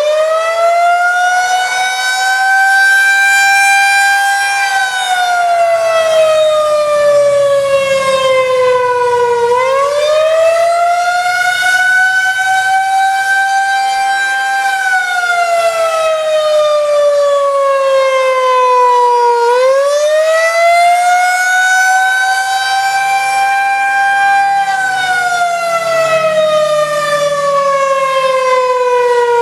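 Federal Signal 2001-130 electromechanical outdoor warning siren sounding the attack signal: a loud wail whose pitch climbs over about four seconds, holds briefly, then sinks over about five, repeating about every ten seconds, as the siren's motor is switched on and off to wind it up and down.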